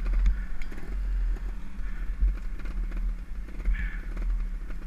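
Trial motorcycle engine running at low revs, with scattered knocks and rattles from riding over rough ground and a heavy low rumble throughout.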